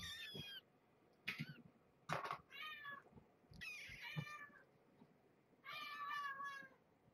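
Young kittens mewing for food: about four high, thin mews spread through the few seconds, with a couple of short clicks in between.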